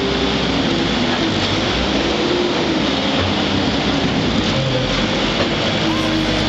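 Diesel engine of a Bobcat telehandler running steadily as the machine pushes manure with its front bucket.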